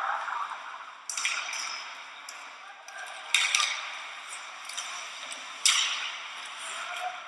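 Ice hockey game sound in an echoing rink: sharp cracks of sticks hitting the puck. The loudest come about a second in, a little past three seconds and near six seconds, with smaller clicks between.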